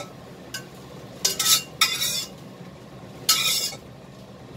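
A spatula scraping around a stainless steel wok holding cooked scrambled egg, a few short scrapes in the middle and another near the end, over a low steady hiss.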